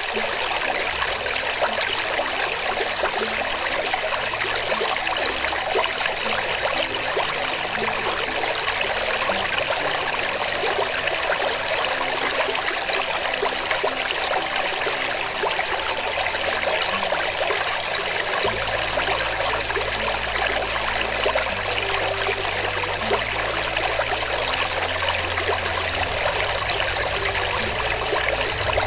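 Steady sound of running water, like a babbling stream, an even splashing hiss that does not let up.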